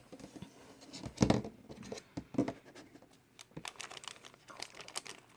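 Toy blind-box packaging being handled: plastic wrap and cardboard crinkling and rustling, with scattered small clicks and a louder knock about a second in.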